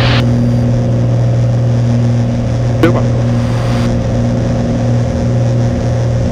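Cessna 182's engine and propeller running steadily at full takeoff power during the climb-out just after liftoff on a short-field takeoff; a loud, even drone.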